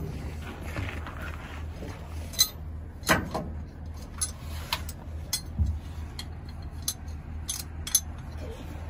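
Metal hooks of a tie-down strap clinking and clicking against each other and the race car's steel frame as the strap is looped around and hooked back on itself, a scattering of short sharp clicks over a steady low hum.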